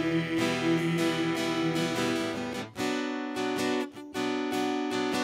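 Acoustic guitar strumming chords on its own, the chords left to ring between a few strokes.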